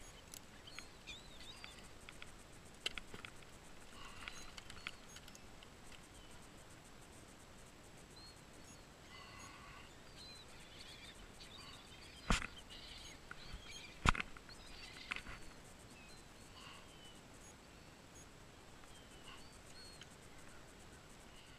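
Faint handling noise of a fish and fishing gear in a kayak, with two sharp knocks about halfway through. Short high chirps come and go in the background.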